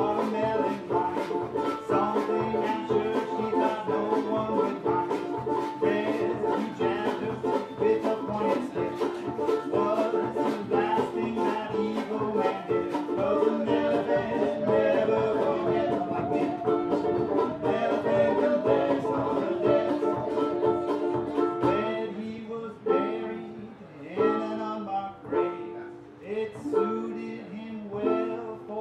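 Live acoustic string band playing, a banjo strummed in a steady rhythm with other plucked strings. A wavering melody line runs over it about halfway through, and near the end the playing thins to spaced, separate chords.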